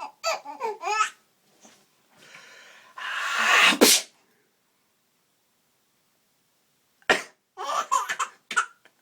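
Five-month-old baby laughing in short bursts, and a man's loud sneeze about three seconds in, a drawn-in breath building into a burst that cuts off sharply. After a pause, a sharp cough about seven seconds in sets the baby laughing again.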